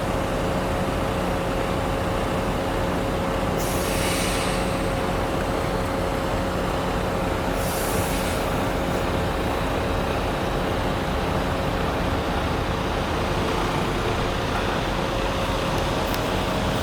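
Heavy diesel concrete truck running steadily with a constant hum, with two short hisses about four and eight seconds in.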